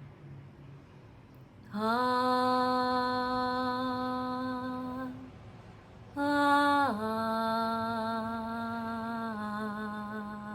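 A woman singing long, wordless held notes as a 'soul song'. There are two sustained tones: the first slides up slightly as it starts, and the second starts higher, glides down and holds, dropping a little lower near the end.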